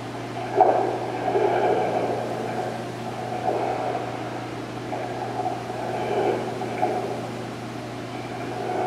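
A steady low hum with muffled rushing noise over it that swells and fades every second or so.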